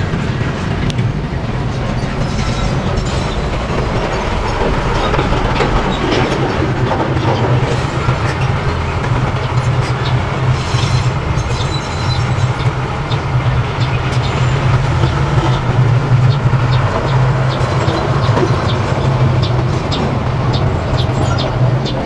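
Diesel earthmoving machinery (a small crawler bulldozer and dump trucks) running steadily, with a deep engine rumble and repeated metallic clanking and rattling over it.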